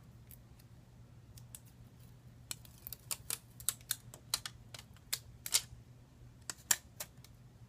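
Irregular light clicks and taps of small tools and parts being handled on a smartphone's screen assembly, a few at first, then coming thick from about two and a half seconds in, over a faint steady hum.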